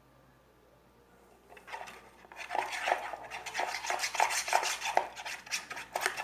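A spoon stirring slime in a container, clacking and scraping against its sides in repeated strokes about three times a second. It starts about a second and a half in, after a quiet start.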